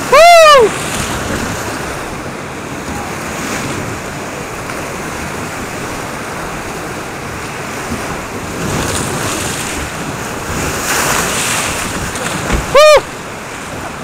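Rushing, splashing whitewater of a big Colorado River rapid, heard from a boat in the waves, with wind on the microphone. Twice, once at the very start and once briefly near the end, a loud, short, high-pitched sound rises and falls in pitch over the water noise.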